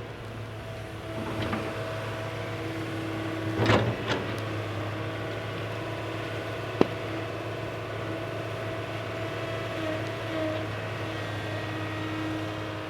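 Small electric motors of a remote-controlled toy excavator whirring with a whine that comes and goes, with a couple of knocks at about four seconds and a sharp click about halfway through.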